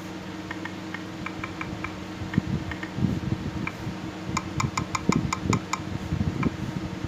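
Smartphone's on-screen keyboard giving a short click for each key tapped while a password is typed. A few scattered ticks come first, then a quick run of about a dozen a little past the middle. Dull thumps of fingertips on the phone are mixed in.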